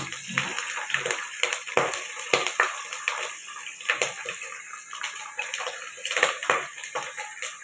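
Water spraying down into a large pot, hissing steadily with many small irregular splashes.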